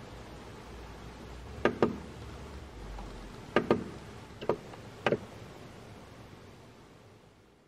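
Push buttons on an AvMap EngiBOX engine monitor clicking as they are pressed: four presses, most heard as a quick double click, over a low steady hum.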